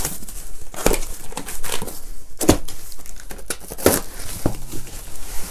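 Cardboard box being opened by hand: the flaps are pulled back and the packaging rustles and crinkles, with several sharp crackles.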